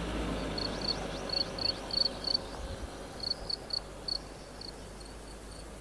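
An insect chirping: short, high pulses repeating about three to four times a second, with a brief pause midway. A low vehicle rumble fades away in the first second.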